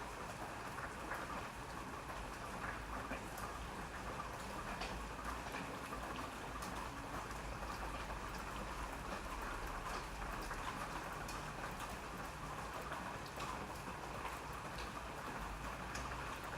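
Steady rainfall: an even hiss of rain with many separate drops ticking on a surface close by.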